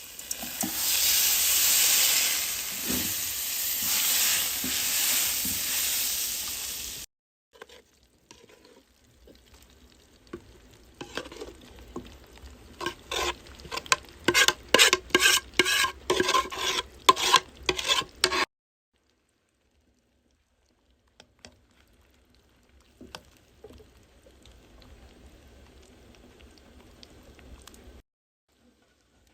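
Herb frittata (kuku sabzi) sizzling in oil in a pan, a loud steady hiss that cuts off suddenly after about seven seconds. Later comes a quick run of sharp clicks and scrapes of a utensil against the pan, followed by faint handling noise.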